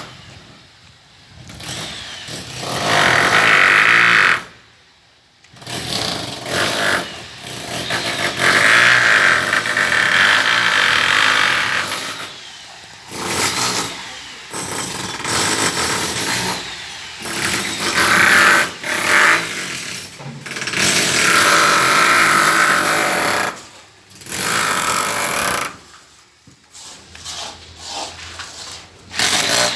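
Power tool running in repeated bursts of a few seconds with short pauses between them, a loud harsh noise with a high whine.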